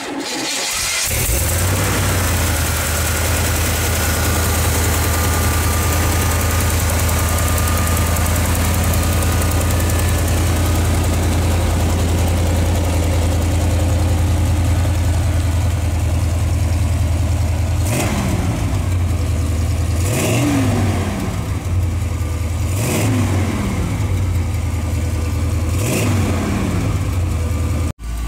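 454 cubic-inch V8 idling steadily. Near the end it is blipped four times, each rev jumping up quickly and sliding back down to idle.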